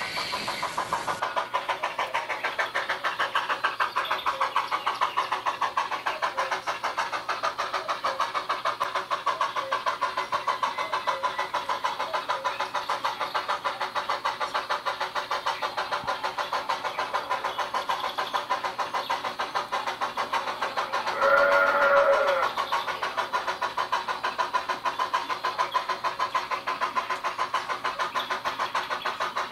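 Sound decoder in an 009 narrow-gauge model steam locomotive playing a steady run of quick, even chuffs through its small speaker, with a short whistle about three quarters of the way through.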